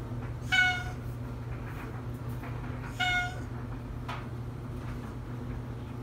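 Oriental Shorthair cat giving two short, honking meows about two and a half seconds apart, the demanding call of a cat that wants something, here to be let into the dryer. A clothes dryer hums steadily underneath.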